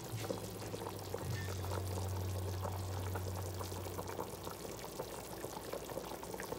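Pot of chicken soup at a rolling boil, bubbling with many small irregular pops. A low steady hum joins in for a few seconds in the middle.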